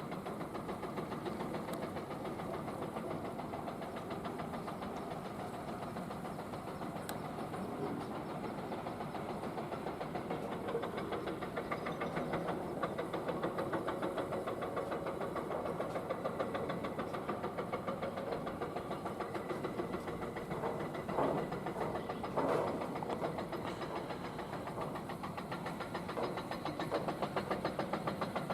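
Excavator's diesel engine running steadily with a fast, even pulse. Two brief louder surges come about three-quarters of the way through.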